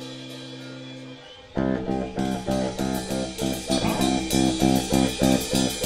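Live rock band with electric guitar and bass: a held chord dies away, then about one and a half seconds in the band comes in loudly on a quick, repeated riff.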